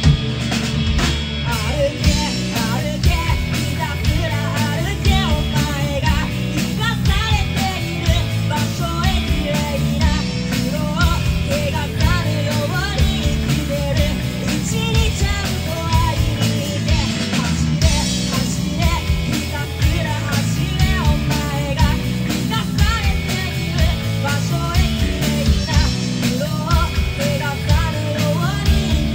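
Three-piece rock band playing live: electric guitar, electric bass and drum kit, with a steady beat and a bending melodic line over it.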